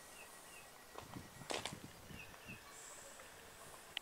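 Quiet footsteps of someone walking, with one sharper scuff about a second and a half in as the loudest sound. Short bird chirps repeat in the background.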